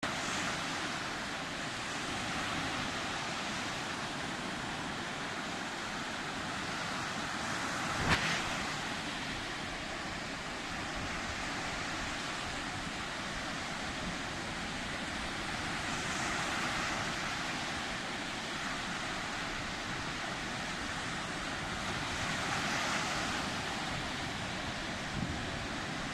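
Sea surf: waves breaking and washing in as a steady rush that swells every several seconds. A sharp knock stands out about eight seconds in.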